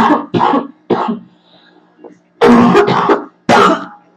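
A woman with a cold coughing in two short bouts: three quick, harsh coughs, then after a pause of about a second two more.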